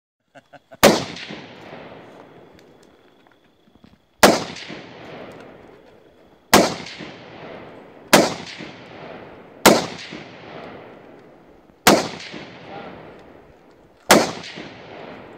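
Scoped rifle fired seven times at an uneven pace, the shots about one and a half to three and a half seconds apart, each crack trailing off in a long rolling echo.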